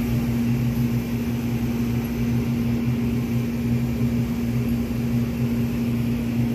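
Steady low mechanical hum with one constant tone that does not change, the running noise of machinery in a small grocery shop.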